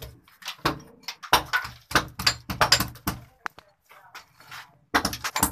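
A person talking, with short sharp knocks mixed in. There is a brief lull a little before the end.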